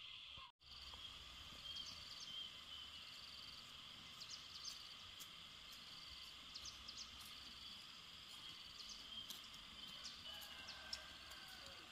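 Faint outdoor ambience: a steady high insect chorus, with short high chirps, likely birds, scattered through it. The sound cuts out completely for a moment about half a second in.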